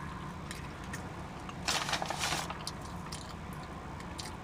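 Close-up mouth sounds of chewing food, with a short loud crunchy burst about two seconds in and a few small clicks, over a low steady hum.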